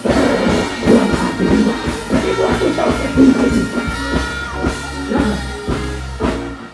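Dancehall music played loud through a stage sound system, with a heavy bass line and drum beat; the bass cuts out near the end.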